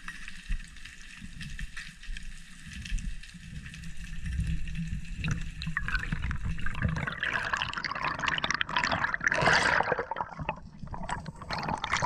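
Underwater water noise heard through a diver's camera: a steady low rumble and hiss, then from about six seconds in, louder irregular bubbling and rushing water as the diver moves.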